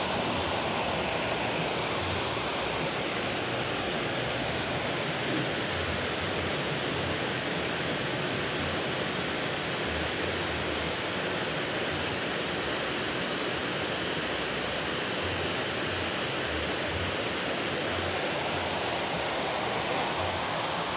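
Steady rush of flowing stream water over rocks, unchanging throughout.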